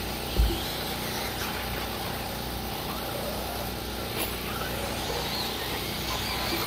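1/8-scale electric RC buggies racing on a clay track: a steady wash of faint motor whine and tyre noise, with a single low thump about half a second in.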